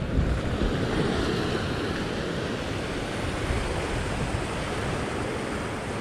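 Steady wash of sea surf breaking over and around a rock shelf, with wind rumbling on the microphone.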